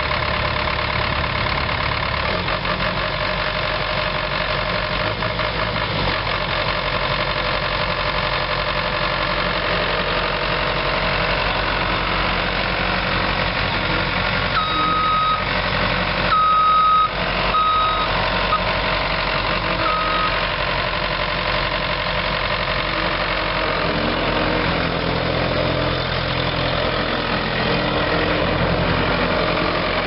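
Case 1845C skid steer's four-cylinder diesel engine running steadily as the machine is driven. About halfway through, a backup alarm beeps several times over a few seconds.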